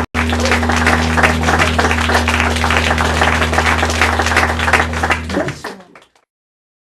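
Audience applauding over a steady low hum, the clapping dying away about five to six seconds in.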